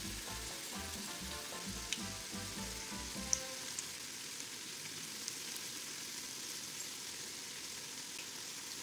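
Balls of sweet yeast dough deep-frying in oil in a saucepan: a steady sizzle with a couple of small sharp pops.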